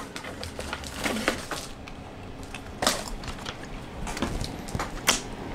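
Candy packaging, a packet of gum, being handled: scattered light crackles and taps, with a few sharper snaps about a second, three seconds and five seconds in.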